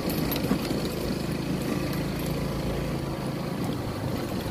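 Small motorcycle engine running steadily at low speed, a low, even hum.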